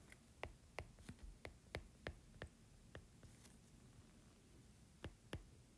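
Stylus tip tapping on a tablet's glass screen while handwriting: faint sharp ticks, two to four a second, with a pause of about two seconds after the first three seconds.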